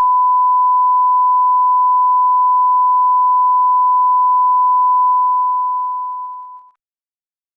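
A single pure, steady test tone, held level and then fading out from about five seconds in until it stops shortly before the end, the kind of off-air tone a broadcast station leaves when its programme is cut.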